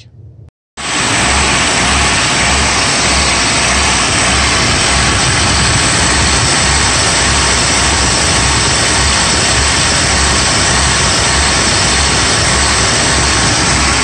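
1997 Nissan D21 pickup's KA24E four-cylinder engine running and surging, starting abruptly about a second in. The surging is the sign of a drastic vacuum leak, the engine sucking air big time at the intake manifold, caused by a wrong intake manifold gasket (one for the KA24DE).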